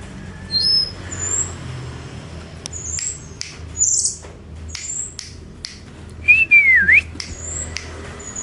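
Tledekan songbird singing: a string of thin, very high whistles and short sharp ticking notes, with a louder swooping whistle that dips and then rises about six seconds in.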